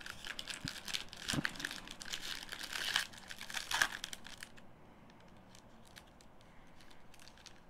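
Upper Deck hockey card pack wrapper being torn open and crinkled in the hands. A dense crackling for about four and a half seconds, then only faint clicks of handling.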